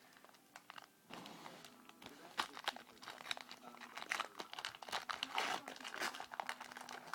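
Foil trading-card pack wrapper crinkling and tearing as it is opened, with cards rustling as they are handled; the crackling is densest about two-thirds of the way through.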